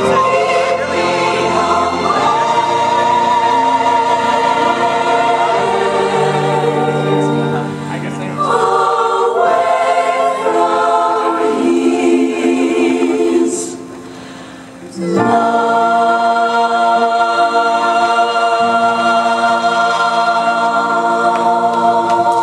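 A choir singing a gospel-style song in long held chords. The sound drops away briefly about 14 seconds in, then the singing returns.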